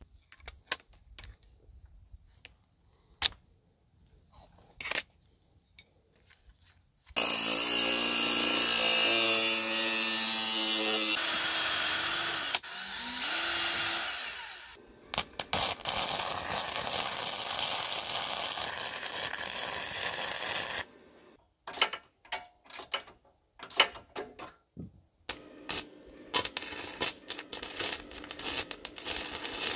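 Cordless drill boring through a short steel tube in runs of several seconds, its motor whining up in pitch as it spins up, between quieter handling clicks. Near the end, the steady crackle of a wire-feed welder welding steel.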